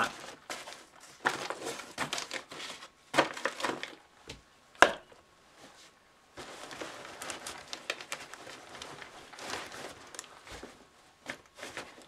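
Rustling and crinkling of nylon fabric and plastic-wrapped kit as items are pushed and packed into a backpack, with a sharp knock about five seconds in.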